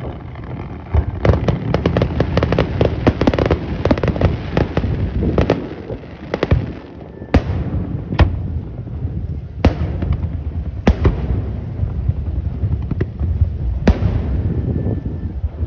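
Aerial fireworks display: a dense run of rapid crackling bursts for the first several seconds, then about five single sharp bangs a second or more apart, over a low rumble.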